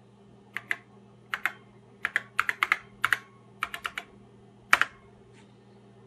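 Keystrokes on an Apple II keyboard: about fifteen clicks in short quick runs, typing a password at a remote login prompt, ending with one louder key about five seconds in that sends it.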